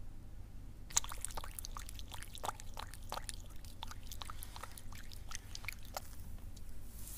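Oiled hands rubbing massage oil over the bare skin of a back: a dense run of small wet, sticky clicks that starts about a second in and thins out near the end.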